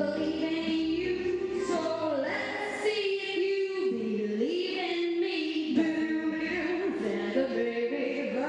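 A woman sings into a handheld microphone over a pop backing track, holding long notes and sliding between them.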